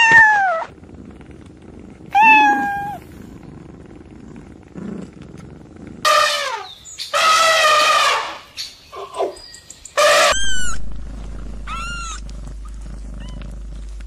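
Kittens meowing: a string of separate meows with pauses between, most short and falling in pitch, with one longer, louder call around the middle.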